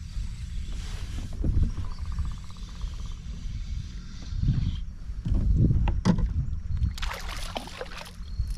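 Water splashing and irregular knocks around a fishing kayak, over a steady low rumble of wind on the microphone, with a brief splashy burst near the end.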